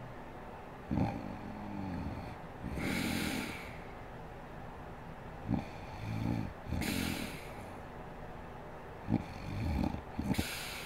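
A sleeping woman snoring in a steady rhythm. Three breaths come about four seconds apart: each starts with a short snort, runs into a low snore, and ends in a breathy out-breath.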